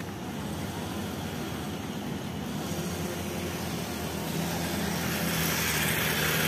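Roadside traffic noise, steady at first, then swelling over the last few seconds as a motor vehicle passes close by.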